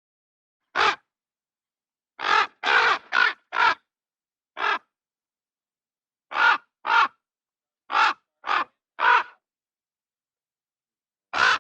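Crow cawing: about a dozen short caws, some single and some in quick runs of two to four, with complete silence between them.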